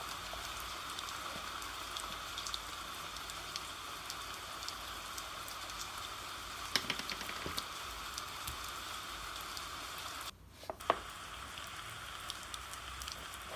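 Steady rain, a constant hiss with scattered small drop ticks. It cuts out briefly for about half a second some ten seconds in, then a sharp tick follows.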